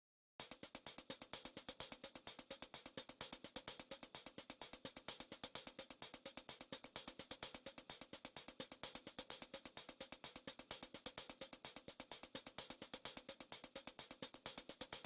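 High-pitched drum percussion played as a fast, even run of rapid strokes, starting about half a second in and cutting off near the end with a brief ring.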